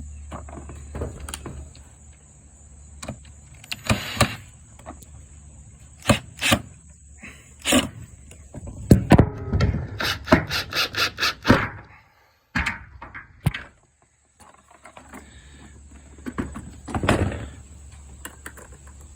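Plastic clicks and knocks from handling and reassembling a robot vacuum, including a quick run of about six ticks a second near the middle. A steady low hum with a thin high whine cuts out about 2 s in and comes back near the end.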